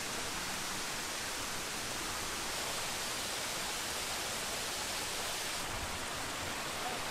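Steady rush of water running over rocks in a stream, an even hiss with no distinct events; the hiss turns slightly duller abruptly near the end.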